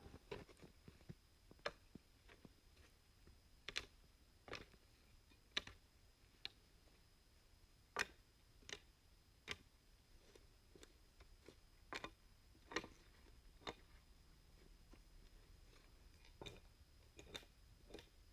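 Irregular sharp clicks and taps, about one a second, over a faint steady background hum.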